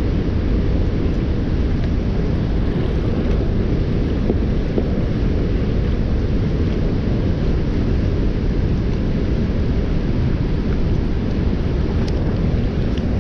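Steady, loud rumbling rush of falling water pouring into the river below a dam, heaviest in the low end and unchanging throughout.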